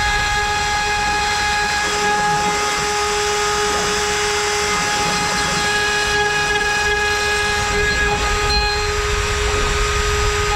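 CNC router spindle at 24,000 rpm driving an 8 mm cutter through wood: a steady high whine over the rasping noise of the cut.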